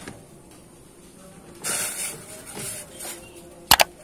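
Petai pods tipped from a bowl into a saucepan of hot water: a short splashing hiss about one and a half seconds in and a weaker one a second later. Near the end come two sharp clicks in quick succession.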